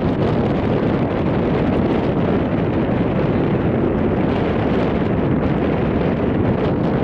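Wind buffeting the camera's microphone: a steady, loud rushing noise, heaviest in the low end, with no separate hits or tones.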